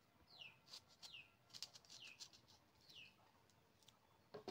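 Faint bird calls: a short chirp falling in pitch, repeated about once a second. A brief louder sound comes right at the end.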